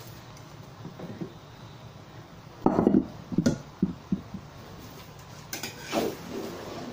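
Metal spatula knocking and scraping against a large metal wok while fried rice is turned over. There are a few clanks about three seconds in and more scraping near the end.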